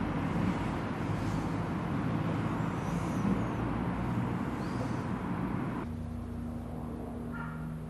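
Diesel railcar running, engine hum mixed with wheel and track noise. About six seconds in the sound cuts off abruptly to a quieter steady low hum.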